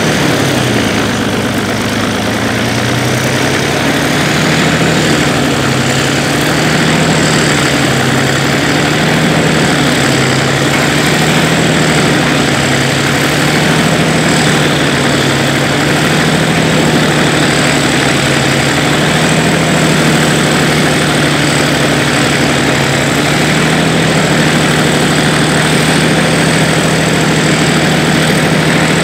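Kirovets K701's YaMZ-240 V12 diesel running steadily near idle, its note wavering slightly at first and then holding even, with a faint high whine above it.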